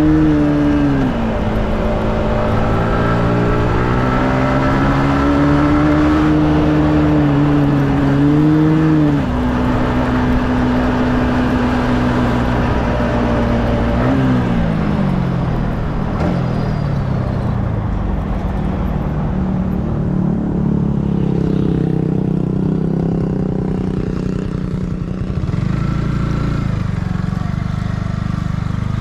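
Yamaha MT-15's single-cylinder engine heard onboard while riding. The engine note climbs and dips with throttle and gear changes through the first half, drops away in a couple of falling glides about halfway through as the bike slows, then runs lower and steadier before picking up again near the end.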